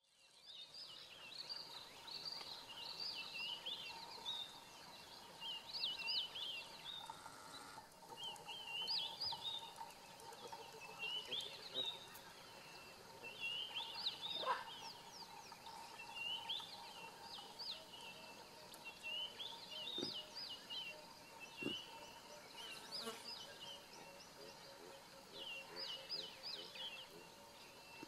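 Birds singing: repeated phrases of quick, high chirps and trills every second or two, over a faint steady hum.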